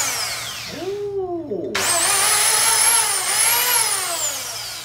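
Small circular saw running free in the air, triggered twice: the motor's high whine falls as it coasts down, then it is triggered again about two seconds in, spins up to a steady high whine and winds down near the end.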